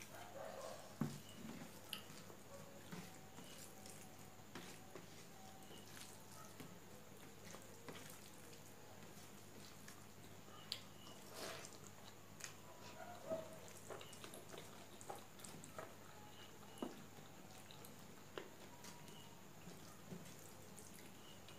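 Faint wet squishing and light clicks of fingers mixing rice with dal on a steel plate, with small mouth sounds of chewing.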